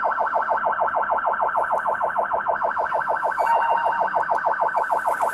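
Police car siren in a rapid pulsing warble, about ten pulses a second, heard from inside the patrol car through the officer's body camera.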